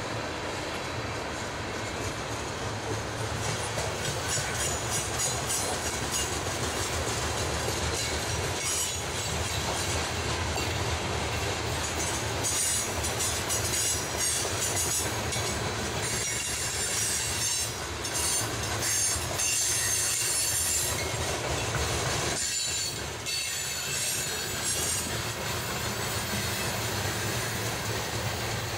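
Norfolk Southern freight train's tank cars rolling past, steel wheels rumbling and clicking over the rails. A high-pitched wheel squeal comes and goes from about twelve seconds in.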